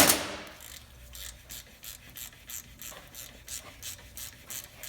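A sharp metal knock, then a hand tool working metal in quick, even rasping strokes, about three a second.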